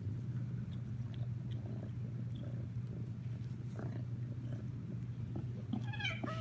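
Calico kitten purring steadily and close up while being stroked, a continuous low rumbling purr.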